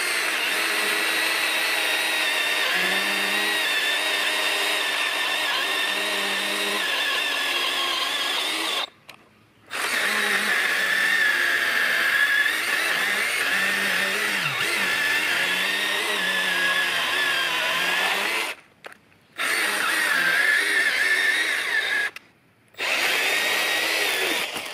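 Milwaukee M12 hatchet pruning chainsaw, a small battery saw, running and cutting through a dead log with a steady high-pitched whine. It cuts out briefly three times: about a third of the way in, and twice near the end.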